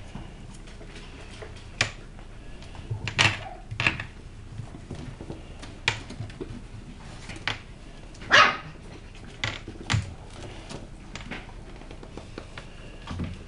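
West Highland White Terrier puppies barking in a scattered run of short, sharp barks a second or two apart, the loudest about eight seconds in.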